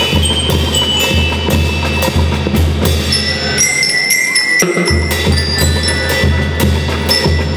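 School rhythm band playing: bell lyres carry a ringing, stepped melody over a bass drum beating about twice a second and crisp snare hits. About four seconds in the drums drop out for roughly a second, leaving the lyres alone, then come back in.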